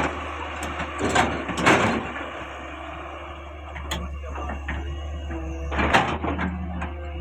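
Caterpillar 385C excavator's diesel engine running with a steady low drone, broken by brief loud rushing noises about a second in and again near six seconds, and a sharp click around four seconds.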